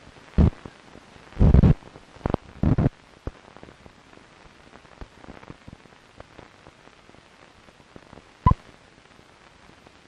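Steady hiss and crackle of an old soundtrack, broken by several loud thumps in the first three seconds and a sharp click about eight and a half seconds in.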